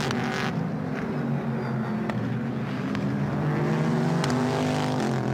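GT300 race cars, a Nissan GT-R GT3 and a Toyota GR Supra, running at racing speed on track; their engine note rises and falls and steps in pitch a few times.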